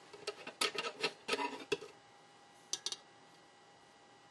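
Metal tweezers clicking and scraping against a small chip package and circuit board as the chip is picked up and flipped over. A quick run of small clicks over the first two seconds, then three fast clicks near three seconds in.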